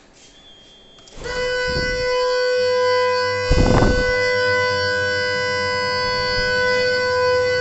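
Electric alarm hooter on a turbine-generator control panel sounding about a second in, one loud steady tone with overtones that keeps going. A dull thump comes about three and a half seconds in.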